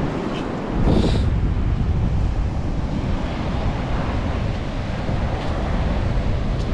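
Strong wind buffeting the microphone, with a steady low rumble, over small waves washing across pebbles and sand at the water's edge. About a second in there is a brief louder rush.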